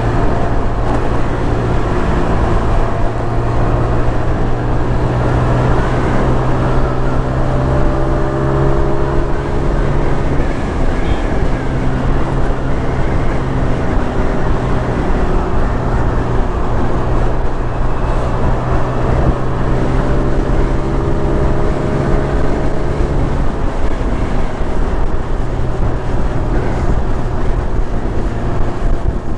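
Motorcycle engine running steadily while riding along, its pitch shifting a little with the throttle, with wind rushing over the microphone.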